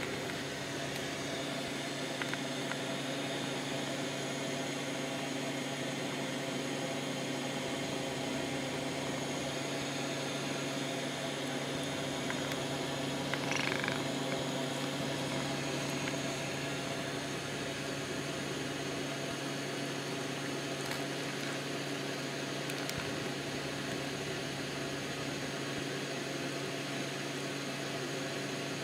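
Domestic cat purring steadily, very close to the microphone, over a constant background hum. A short, higher sound breaks in once about halfway through.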